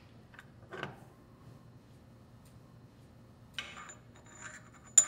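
Light metal-on-metal scraping and a few faint clinks as a steel pivot rod is slid out of a level controller's housing, ending in one sharp metallic click near the end.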